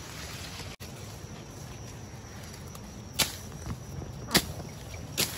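Footsteps: three sharp steps about a second apart in the second half, over steady low background noise.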